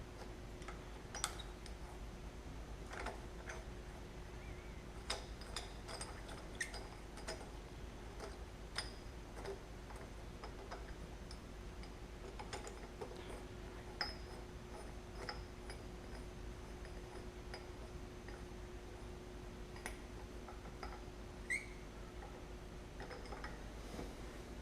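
Sporadic light clicks and metallic clinks of hand tools being handled, over a faint steady hum that stops near the end.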